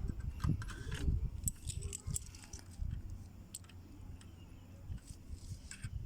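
Scattered light metallic clicks and taps of hand tools and small hex bolts being handled while a new cartridge filter is fitted to a Nissan CVT transmission.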